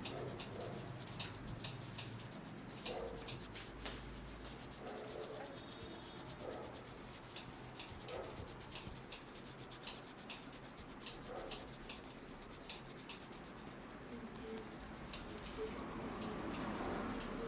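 Hands rubbing and working a scalp through the hair in an Indian head massage: soft friction noise with many small, irregular crackling clicks.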